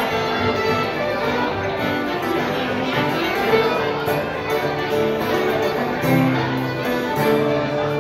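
Acoustic bluegrass band playing live, the fiddle bowing over banjo and guitar.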